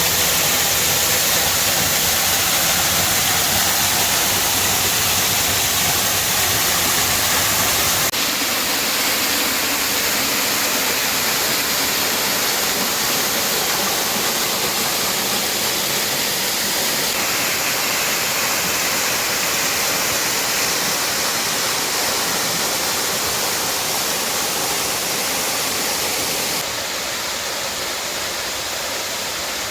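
Waterfall: a steady, loud rush of falling water with no break. Its tone and level change abruptly three times, each a step quieter than the last.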